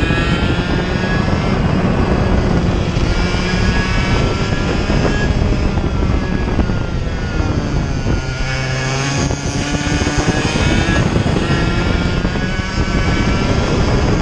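Single-cylinder two-stroke engine of a Mini Rok kart running at racing speed, heard from on board. About seven to eight seconds in, its pitch drops as the kart slows for a corner, then climbs again as it accelerates out.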